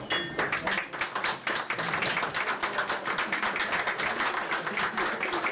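An audience applauding: many people clapping densely and steadily.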